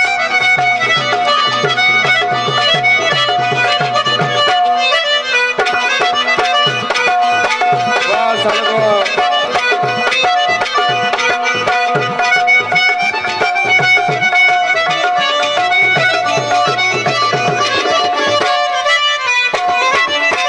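Instrumental traditional Punjabi folk music: a steady hand-drum beat under a sustained melody line.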